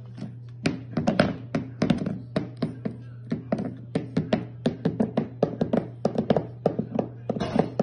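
A cat batting and pushing a ceramic bowl over a hardwood floor, the bowl knocking against the floor in quick irregular taps, several a second. The cat is pawing at the bowl to demand food.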